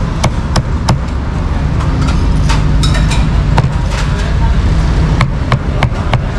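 Cleaver chopping crispy roast pork on a cutting board: sharp knocks about three a second, broken by a short pause in the middle, over steady traffic rumble.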